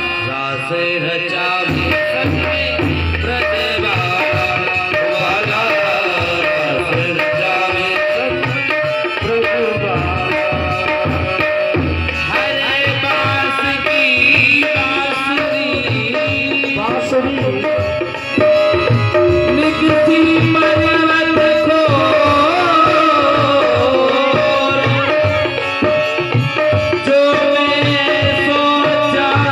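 Indian devotional song music: tabla drumming keeps a steady rhythm under a bending melody line and a held drone tone.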